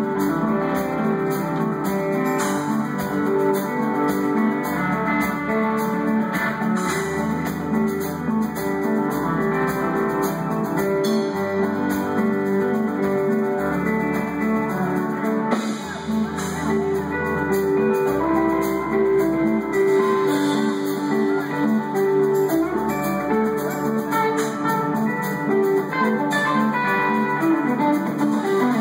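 Rock power trio playing live in a club: electric guitar over bass guitar and a drum kit.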